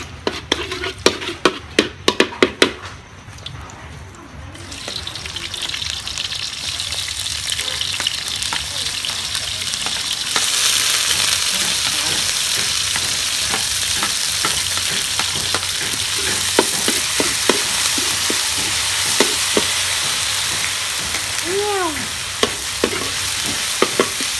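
A metal spatula scrapes and knocks against a steel wok in quick clicks. Then the oil sizzles, growing louder about ten seconds in as garlic and curry paste go into the hot oil, with the spatula clattering as it stirs.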